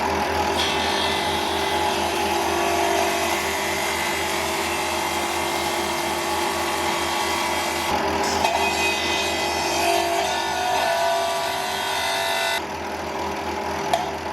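Electric sander running against a workpiece: a steady motor hum under a rough, gritty abrasive hiss. Near the end the gritty hiss drops away and the hum is left.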